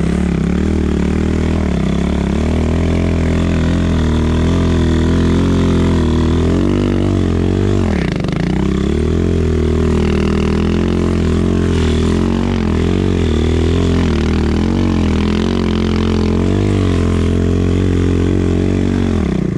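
Chinese 250 cc enduro motorcycle engine running under varying throttle while being ridden, its pitch rising and falling. About eight seconds in the revs drop sharply and climb again, and they drop once more near the end.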